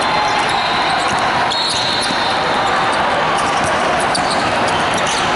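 A basketball bouncing on a hardwood court during play, with short sharp knocks over the steady din of a large hall.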